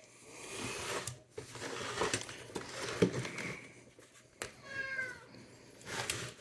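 A domestic cat meows once, a short falling call about four and a half seconds in. Before it come rustling and a few light knocks from handling the typewriter's rubber feet.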